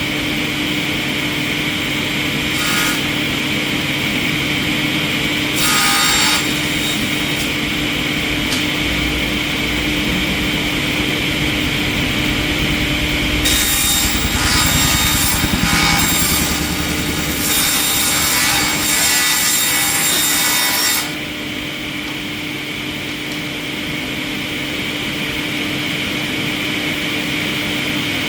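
A wood-processing machine running steadily with a constant hum, cutting into wood in harsh, rasping bursts: briefly twice early, then a long stretch of about eight seconds before it settles back to running alone.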